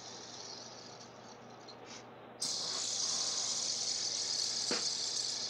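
Fidget spinner whirring on its bearing as a steady high hiss, which jumps suddenly much louder about two and a half seconds in as the spinner is flicked up to speed close to the microphone, with a single light click near the end.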